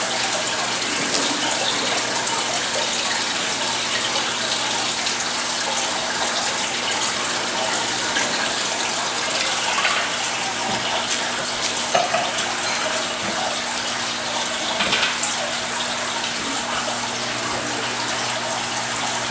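Aquarium water circulation running steadily: a constant rush and splash of water into the tank, with a low, even pump hum underneath.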